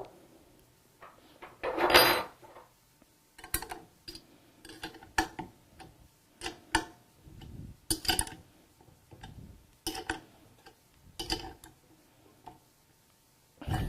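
Metal pump parts and hand tools clinking and knocking as they are handled during reassembly of a dish machine pump's shaft seal: a dozen or so separate sharp contacts, the loudest about two seconds in.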